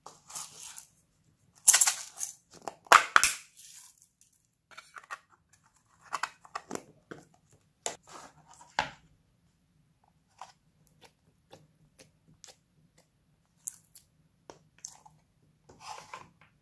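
Plastic crinkling and tearing, loudest in two bursts about two and three seconds in, then scattered light clicks and taps, as blue sequins are sprinkled into a glass dish of glossy slime.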